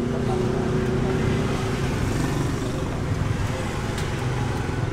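Steady road traffic noise, motor vehicles running past, with a light click about four seconds in.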